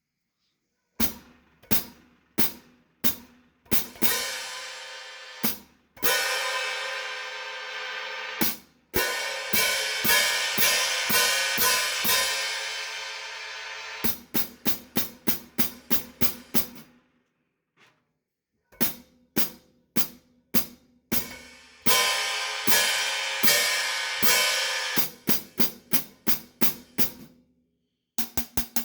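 Paiste 3000 cymbals, 15" Heavy Hi-Hats and a 22" Power Ride, played alone: single sharp hits, strokes left ringing for a few seconds, and runs of quick, even ticks, with a brief silence a little past the middle.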